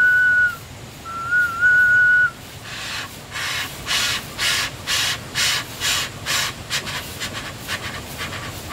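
A man imitating a steam train with his mouth. A held whistle ends about half a second in, and a shorter second whistle follows. Then come rhythmic breathy chuffing puffs, about two a second, that quicken near the end.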